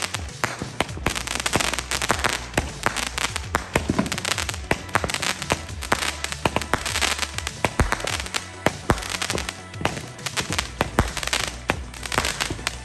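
Consumer fireworks going off on the pavement: a rapid, continuous string of crackling pops and bangs.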